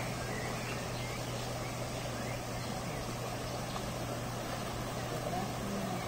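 Steady outdoor background noise: an even rushing sound with a constant low hum under it and a few faint, short high chirps.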